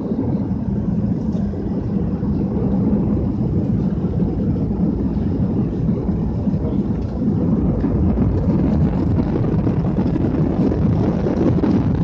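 Airliner jet engines and rumble heard from inside the passenger cabin, a steady low roar that grows a little louder about two seconds in and again about seven seconds in.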